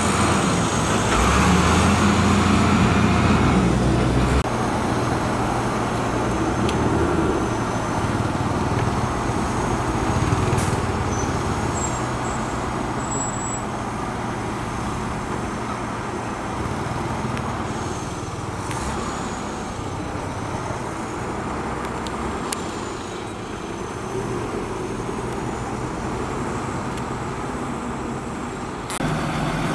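Diesel engine of heavy road-construction equipment running steadily, louder over the first few seconds and then settling to an even working rumble; the sound changes abruptly near the end.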